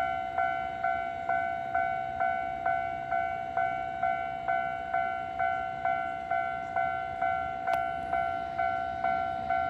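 Japanese railway level crossing warning bell ringing its electronic two-tone 'kan-kan' strike, a little over two strikes a second, which signals that the barriers are down for an approaching train.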